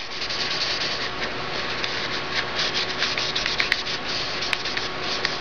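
Paper towel rubbing and scrubbing up smeared broken paintball paint, a steady rough wiping noise with many small crackles.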